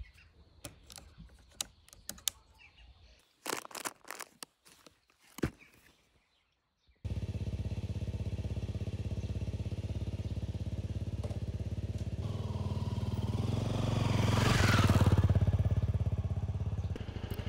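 Honda CRF250L motorcycle's single-cylinder four-stroke engine running steadily. It comes in suddenly about seven seconds in, after a few light clicks and knocks, and grows louder for a moment shortly before the end.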